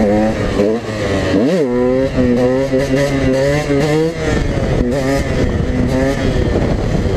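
KTM EXC 125 two-stroke dirt bike engine revving up and down while riding a wheelie. There is a sharp throttle blip about a second and a half in, then a held high rev that drops off near the middle, with wind buffeting the microphone throughout.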